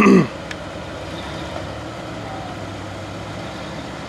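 A short falling voice sound at the very start, then the steady low whir of a radio-controlled truck's electric motor and drivetrain as it creeps along, with a single click about half a second in.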